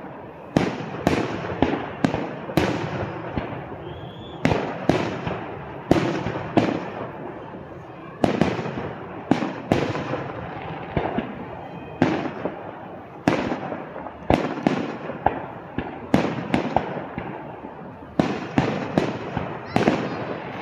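Aerial firework shells bursting in a rapid display, sharp bangs coming one or two a second, each trailing off in an echoing rumble.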